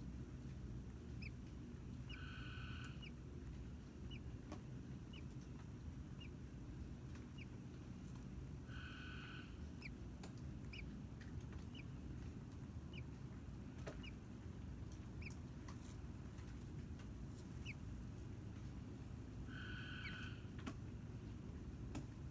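Faint bird chirps repeating about once a second, with a short buzzy call heard three times, over a steady low hum.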